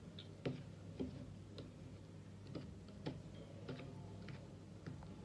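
A metal spoon ticking lightly against a plastic measuring cup while stirring olive oil into powder, a faint tick about every half second.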